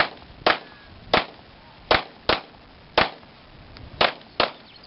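Pistol shots fired in a quick string: eight sharp reports in under five seconds, some single and some in close pairs.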